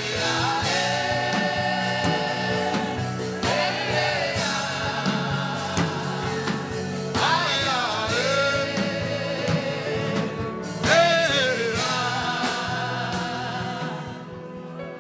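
Gospel-style worship chant: voices singing long, wavering held notes in several phrases over a sustained musical backing, fading out near the end.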